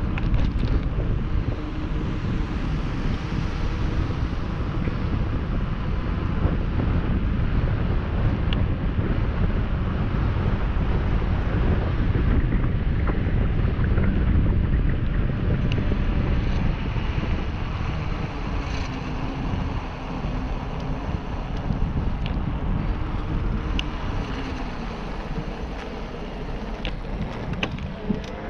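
Steady wind rushing over the camera microphone as a bicycle rolls fast down a paved road, with a few faint ticks near the end.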